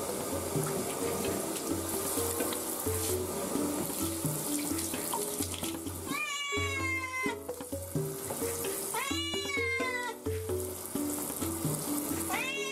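Domestic cat yowling twice while being rinsed under a handheld shower, a distressed protest at the bath. Each yowl lasts about a second and rises then falls in pitch, the first about six seconds in and the second about nine seconds in, with a third just starting at the end. The shower spray hisses steadily throughout.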